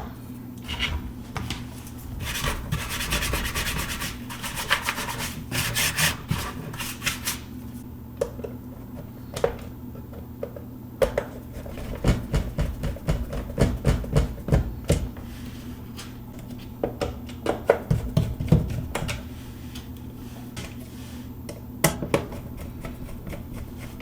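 Plastic charger case being handled and reassembled by hand: plastic parts rubbing and scraping against each other, with many scattered clicks and taps.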